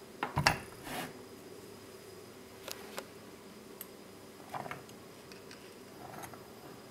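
A small bench vise set down on a workbench mat with a few knocks, followed by light clicks and taps as a small transistor is handled and fitted between the vise jaws.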